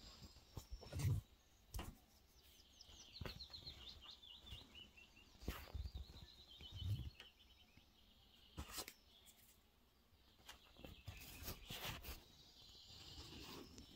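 A small songbird singing faintly, one descending trill of short high notes that runs for several seconds. Scattered faint knocks and clicks come through now and then.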